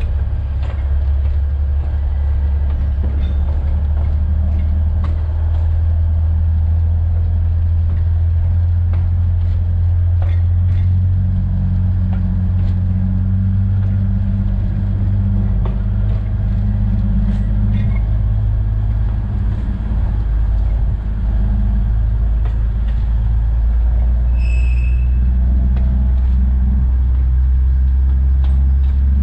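Alishan Forest Railway train's diesel engine running steadily, heard from the driver's cab, with faint clicks from the track. A brief high tone sounds about 24 seconds in.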